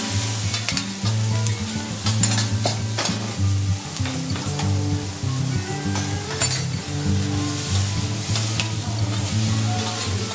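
Sliced onions and green peppers sizzling on a steel teppanyaki griddle while a metal spatula and fork stir them, scraping and clicking against the plate. Background music plays underneath.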